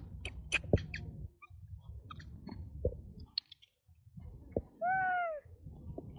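A monkey gives one short call, about half a second long, that rises and then falls in pitch, about five seconds in. Before it comes a quick run of sharp clicks in the first second and a few scattered soft ticks, over a low rumble.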